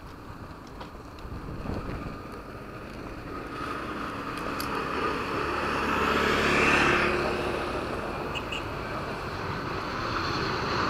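A motorcycle rides past on the quay, loudest about six to seven seconds in. Near the end the engine noise of an airplane coming in low to land grows louder.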